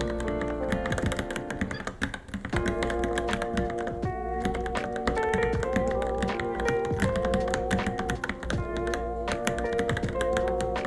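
Fast, irregular keystrokes typed on a Varmilo Minilo mechanical keyboard, over background music with a steady melody.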